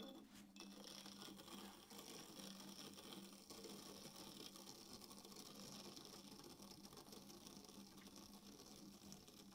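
Faint, even scraping of a loop trimming tool shaving clay from the underside of a large platter as it turns on an electric potter's wheel, over the wheel motor's steady low hum.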